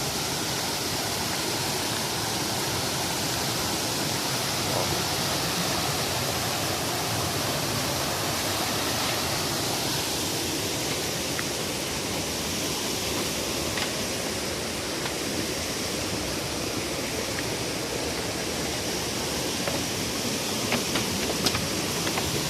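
Steady rush of a waterfall and its fast-flowing river, an even wash of water noise.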